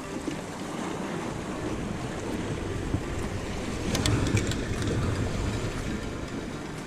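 Steady wash of wind and sea waves, with wind rumbling on the microphone; a few light clicks about four seconds in.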